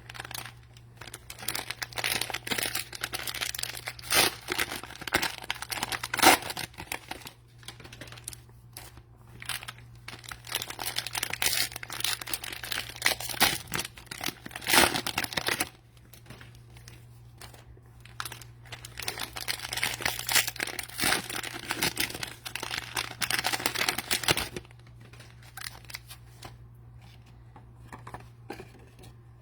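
Crinkly plastic wrappers of trading card packs rustling as the packs are handled, in three spells of several seconds each, with a low steady hum under them.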